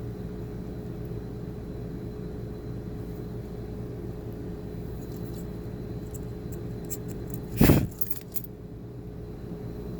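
A steady hum runs throughout, with a few light clicks and taps of small objects being handled and one short, loud knock about three quarters of the way through.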